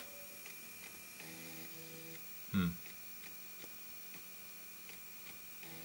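Amstrad CPC 6128's 3-inch floppy drive running with a disk spinning, a faint hum and light ticking, while it tries to read a disk that gives a "Read Fail" error. A buzz of about a second comes soon after the start and again near the end, typical of the head stepper seeking on a read retry. A brief, louder falling sound comes midway.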